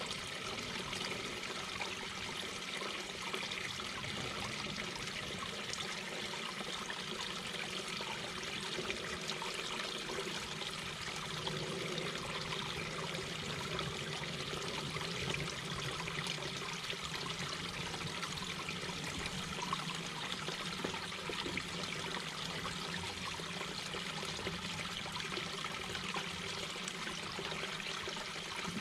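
Mountain brook babbling over rocks: a steady, continuous rush of flowing water with small, flickering splashes.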